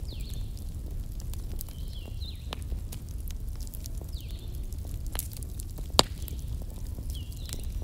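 Small computer fan running on the rim of an aquarium, blowing across the water surface: a steady low rumble of moving air with scattered light crackles and clicks. A sharp click about six seconds in, and faint high swooping tones recur about every two seconds.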